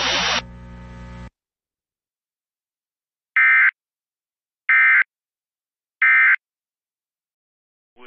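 Emergency Alert System end-of-message signal: three short bursts of SAME digital data tones, each about a third of a second, about a second and a quarter apart, marking the end of the alert. Before them the stream's hiss cuts off in the first second or so.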